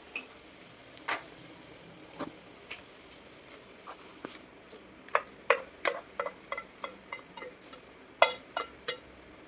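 A spoon clinking and knocking against a cooking pot while the chili is stirred and tomato sauce added. The taps are sparse at first, then come in quick runs in the second half.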